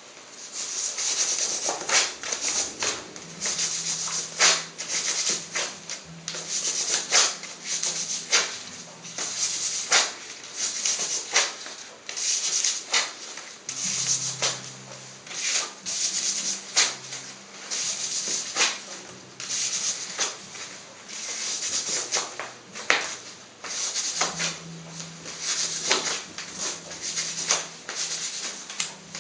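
Repeated brisk rubbing and rustling of cloth waxing strips pressed down and pulled off a freshly waxed leg, in quick irregular strokes about one or two a second, with a faint steady hum beneath.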